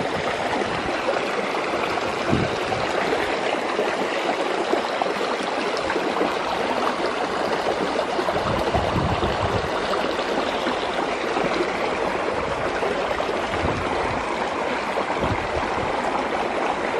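Fast-flowing, muddy stream rushing steadily through a stone culvert, churning into whitewater over the rocks.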